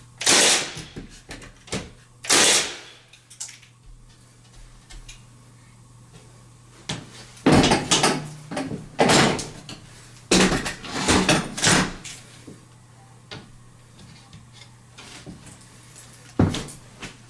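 Milwaukee cordless 16-gauge finish nailer firing twice into wooden window casing, two sharp shots about two seconds apart. Later come clusters of knocks and handling noise.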